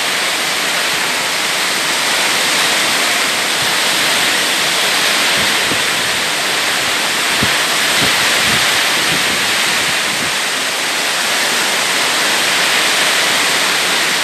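Heavy rain pouring down in a strong windstorm, a steady loud rushing hiss, with a few faint low thumps in the middle.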